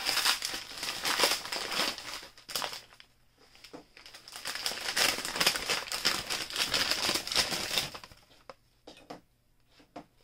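White packing paper crumpling, crinkling and tearing as it is pulled off wrapped toy parts by hand. It comes in spells, with a short pause about three seconds in and only a few scattered crackles near the end.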